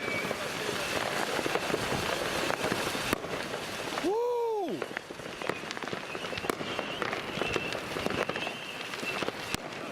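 New Year's Eve fireworks going off all around: a dense, continuous crackle of bangs and firecrackers that runs together into a rain-like patter, with a faint wavering whistle. About four seconds in, the crackle drops out for under a second and a short tone rises and falls.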